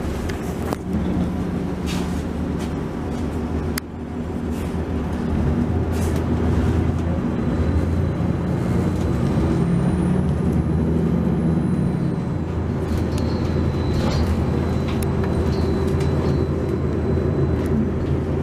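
Interior sound of a Neoplan AN460LF dual-mode articulated bus under way on its Detroit Diesel Series 60 engine: a steady low engine drone that grows louder about five seconds in as the bus pulls harder. A few sharp clicks and rattles come in the first four seconds.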